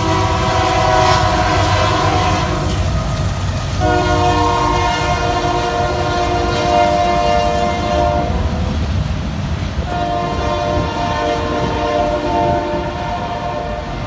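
Union Pacific GE freight locomotive's multi-chime air horn sounding three long blasts for a grade crossing, over the low rumble of the passing train.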